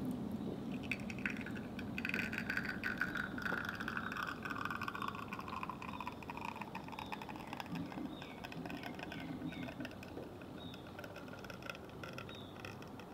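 Espresso from a Flair Neo manual lever espresso maker trickling into a glass shot glass during extraction, with a slowly falling tone in the first half and small ticks and short chirps throughout.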